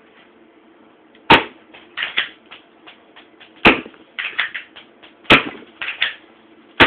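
Four shots from a KWC SIG Sauer SP2022 airsoft pistol, sharp cracks spaced about one and a half to two and a half seconds apart, each followed by a short rattle of small clicks and impacts.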